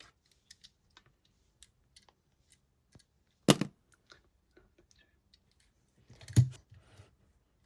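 Small clicks and taps of a die-cast toy car being handled, with two louder, sharp knocks, one about three and a half seconds in and another about two-thirds of the way through.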